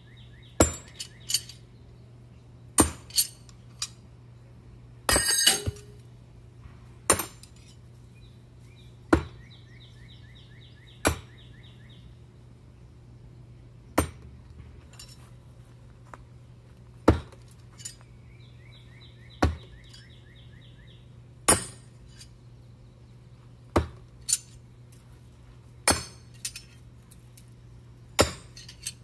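Steel no-spin throwing knives striking a wooden board target one after another, a sharp metallic knock every two to three seconds.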